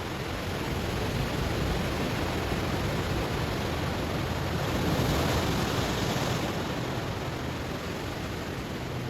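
Ocean waves washing over stones: a steady rush of surf that swells to a peak about five seconds in, then falls back.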